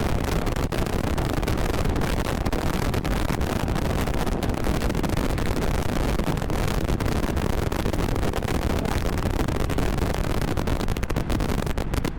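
Mazda MX-5 roadster at speed on track: a steady, loud rush of wind on the microphone over engine and road noise.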